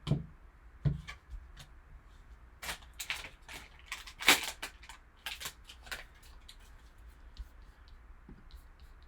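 A sealed sports-card box and pack being handled and opened: two dull knocks near the start, then about three seconds of tearing and crinkling packaging, then faint light ticks of cards being handled.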